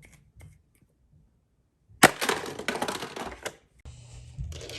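Plastic toy playset clattering: a sharp plastic snap about two seconds in, followed by about a second and a half of rapid rattling clatter, typical of a toy monster truck launched through the Hot Wheels Monster Trucks T-Rex Volcano Arena.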